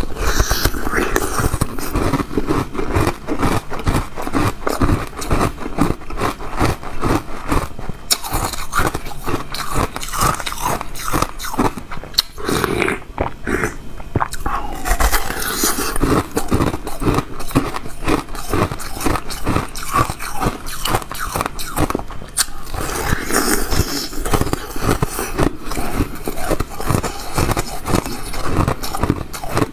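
Close-up crunching and chewing of frozen milk ice: dense, sharp crackles as bites break off pieces and the teeth grind them.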